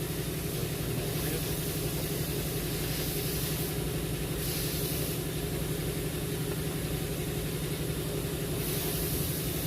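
An engine idling steadily, a low pulsing hum, with a high hiss that swells and fades every few seconds.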